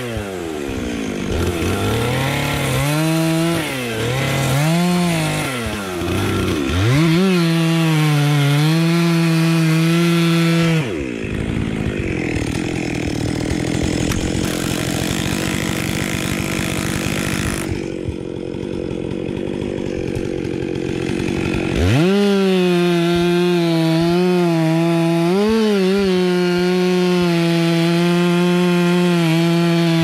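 Stihl MS 400 C two-stroke chainsaw revving up and down, then held at full throttle cutting into a spruce trunk. For about ten seconds in the middle the saw drops out and a cordless drill runs, driving a screw-type felling wedge into the cut. The saw then comes back in at full throttle, cutting steadily.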